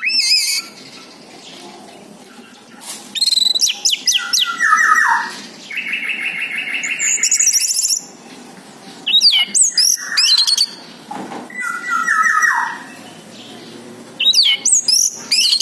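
Orange-headed thrush singing: loud, varied phrases of quick whistles and downward-gliding notes, broken by pauses of about a second. The phrase about six seconds in is a buzzy trill, followed by a high, fast trill.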